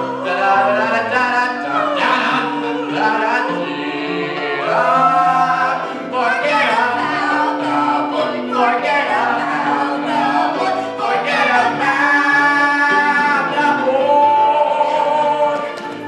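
A group of voices singing a show tune with instrumental accompaniment.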